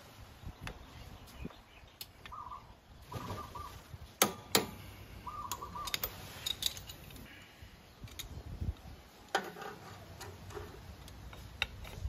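Torque wrench on a 19mm socket tightening a scooter's clutch nut: two sharp clicks about half a second apart, the wrench signalling that its set torque of 49 N·m has been reached. Lighter ticks of tool handling and a few short bird calls come through around it.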